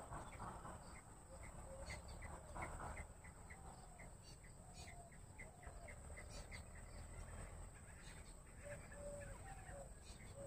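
Bush quail calling: a faint run of short, evenly repeated notes, about two to three a second, joined from the middle on by short lower notes.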